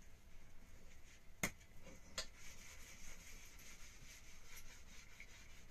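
A metal wok being handled on a clay stove: two sharp, light knocks, about one and a half and two seconds in, over a quiet background.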